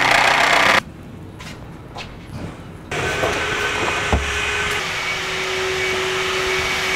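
A Bosch cordless impact driver runs in a loud burst that cuts off just under a second in, followed by a few light clicks. About three seconds in, a shop vacuum starts and runs steadily with a hum, sucking debris out of a wooden boat's bilge, with a single knock about four seconds in.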